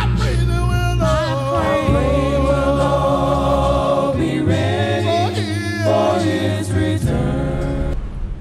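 A group of voices singing a gospel hymn a cappella in harmony, with long held notes over low bass voices. It fades out near the end.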